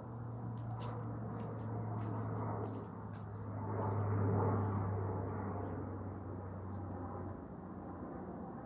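Twin-turboprop drone of a C-27J Spartan passing overhead, a steady low hum that swells to its loudest about four seconds in, drops in pitch as it goes past, then fades.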